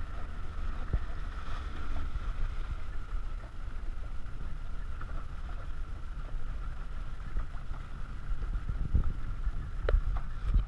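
Small open boat under way, its motor giving a steady drone, with low wind rumble on the microphone. A couple of sharp knocks come near the end.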